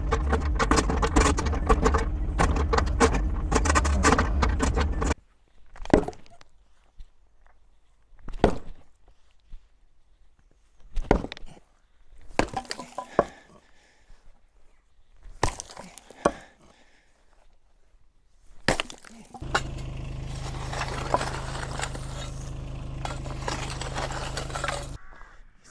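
Takeuchi TB216 mini excavator's diesel engine running under load, cutting off about five seconds in. Then come single heavy hammer blows breaking concrete, one every second or two. Near the end the excavator's engine is idling while the hammer keeps striking.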